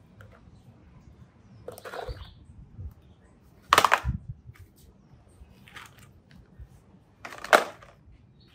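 Mud-coated plastic toys being picked up off a tray and dropped into a plastic mesh basket: four short scrapes and clatters, the loudest two about four and seven and a half seconds in.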